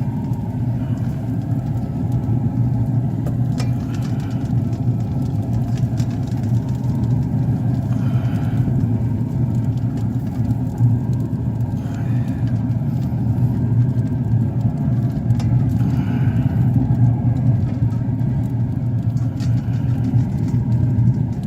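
Steady low rumble, even in level throughout, with a few faint light clicks.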